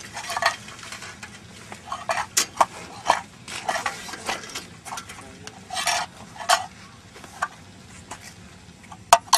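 Coins rattling in a small cup: irregular light clinks and short scrapes, some louder than others.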